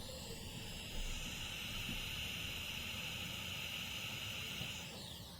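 Steady hiss from a loudspeaker tweeter, heard close up: the noise floor of a Gemini PA-7000's phono preamp stage, its 4558 op-amp amplified with the volume turned all the way up. It swells about a second in and fades near the end.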